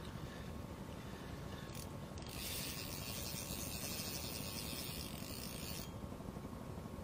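Spinning reel being cranked to wind in line, a steady gritty whirring that starts about two seconds in and stops about a second before the end.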